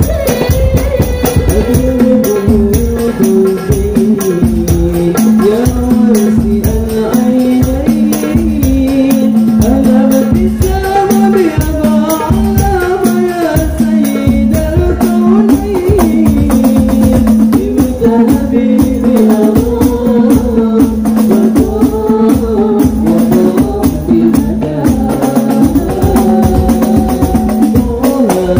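Hadroh ensemble of rebana frame drums and wooden goblet drums playing dense, fast interlocking rhythm variations, with a male voice singing a sholawat melody over them.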